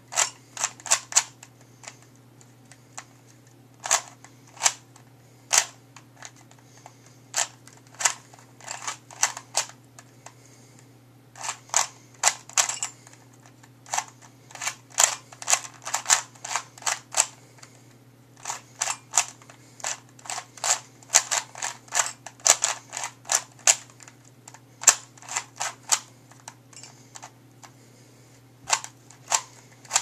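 Plastic Rubik's Cube layers being turned fast by hand during a timed solve: quick runs of sharp clicking turns, broken by pauses of a second or two while the solver looks at the cube.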